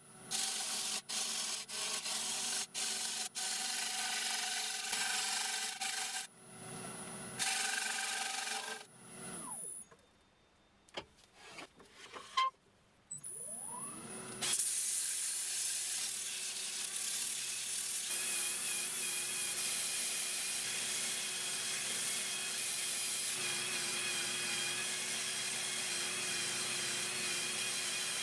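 Wood lathe spinning a spalted ash bowl while a tool works the wood, interrupted by quick cuts. Midway the lathe winds down to a stop and then spins back up. After that comes a steady hiss with a high whine from a drill-driven sanding pad on the turning bowl.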